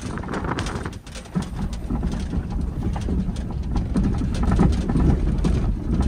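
Vehicle driving slowly over a rough paddock: a steady low rumble with frequent irregular knocks and rattles.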